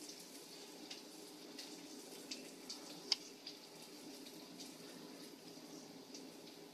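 Faint steady hiss with a few light clicks of a knife tip tapping against a tiny crab and the plastic surface beneath it, the sharpest click about three seconds in.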